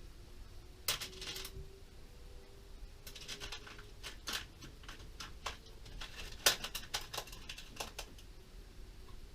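Small steel bolts clinking and clicking as they are handled and sorted, in scattered light metallic taps, the sharpest a little past the middle.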